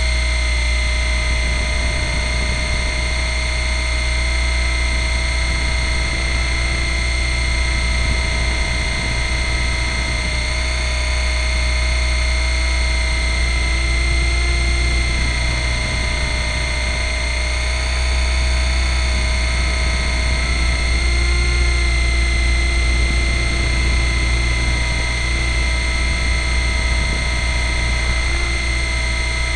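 Nine Eagles Kestrel 500 RC helicopter in flight, heard from its own onboard camera: a steady motor and gear whine over a low rotor rumble. The pitch wavers slightly as the motor speed changes.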